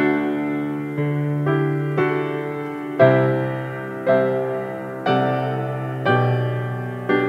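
Slow instrumental piano music: chords struck about once a second, each fading before the next.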